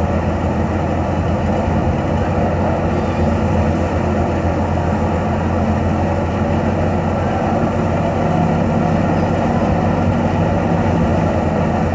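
A 640 tractor's engine running steadily under load while powering a wheat thresher, the engine and the threshing machine together making one continuous loud drone with a steady low hum.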